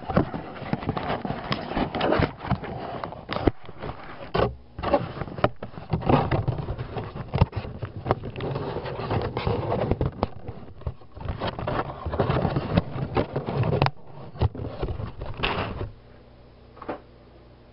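Handling noise of a camera being moved about and set in place, with cloth and hands rubbing and scraping right on the microphone and repeated knocks. After about sixteen seconds it settles to a faint steady hum, with one small click near the end.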